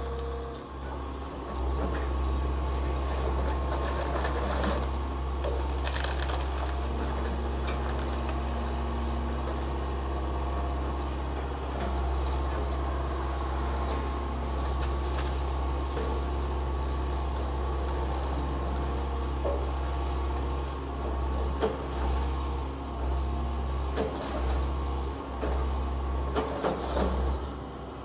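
Excavator's diesel engine running with a steady low rumble, with occasional sharp knocks and cracks of demolition debris.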